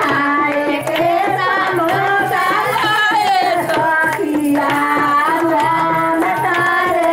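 Music: a voice singing long, held melodic lines over a steady hand-drum beat.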